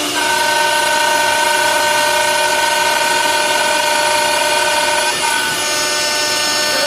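CNC door lock and hinge mortising machine running, its spindle giving a steady high-pitched whine over a dense hiss, with a brief dip about five seconds in.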